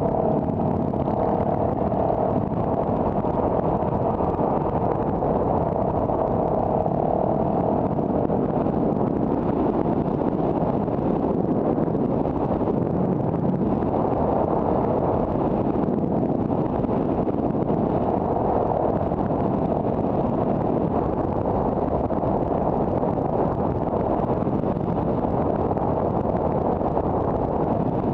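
A car driving along a road: steady engine and tyre noise.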